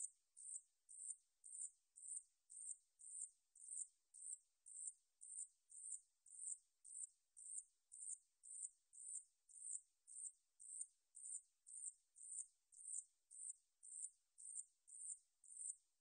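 Ussuri shield-backed katydid (Paratlanticus ussuriensis) singing: a high, buzzy chirp repeated evenly about twice a second, each chirp swelling and then stopping abruptly.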